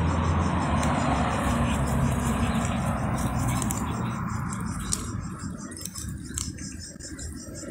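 Low rumble of passing traffic that fades after about three seconds, under a steady pulsing trill of crickets. A handful of sharp clicks, mostly in the second half, come from the cat chewing fish on a crinkly plastic sheet.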